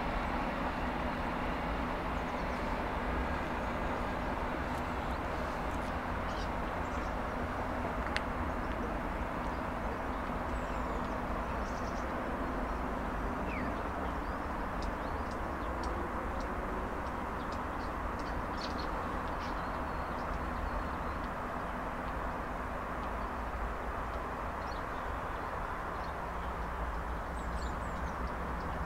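Steady distant rumble of a train receding down the line, slowly fading, with a few faint bird chirps over it.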